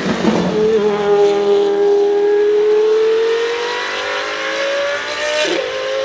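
McLaren Solus GT's Judd-derived naturally aspirated V10 passing close by and then accelerating away, its pitch rising steadily as it pulls up the road. Near the end comes a brief sharp dip in pitch, an upshift.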